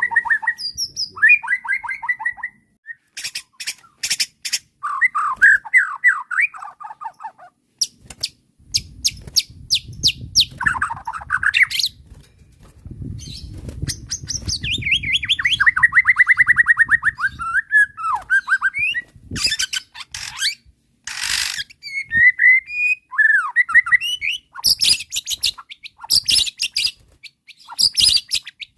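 White-rumped shama (murai batu) singing agitated, varied song: rapid trills and fast runs of repeated whistled notes, broken by bursts of sharp clicking notes.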